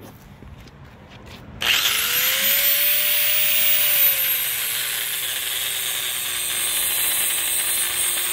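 DeWalt angle grinder switched on about a second and a half in, spinning up with a rising whine, then grinding along a crack in a tennis court's surface to chase it open before filling. Its pitch sags a few seconds in as the disc bears down on the court.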